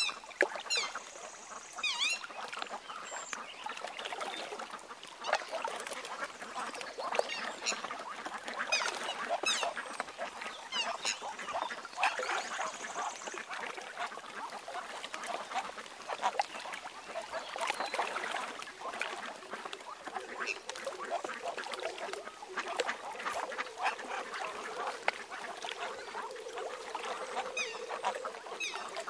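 A family of mute swans and their cygnets feeding on the water: continual splashing and dabbling of bills, with soft waterfowl calls and a few short high bird chirps. A low steady hum joins in over the last several seconds.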